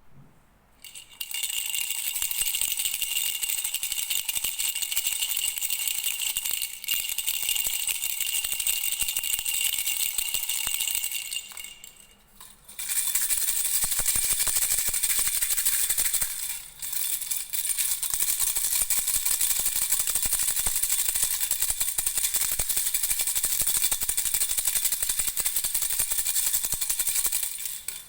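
Baby rattle with small bells (jhunjhuna) shaken continuously, a dense jingling rattle with a bright ringing tone. It stops briefly about twelve seconds in, then resumes with a slightly different, brighter ring.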